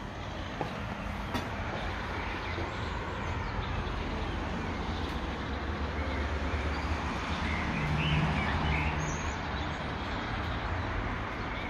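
Outdoor town ambience: steady distant road traffic rumbling, swelling a little about eight seconds in as a vehicle passes.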